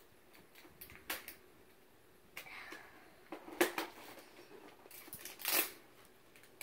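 Plastic packaging of an L.O.L. Surprise ball being handled and peeled open: scattered clicks of hard plastic and crinkling, tearing rustles of a plastic seal strip, the longest rustle near the end.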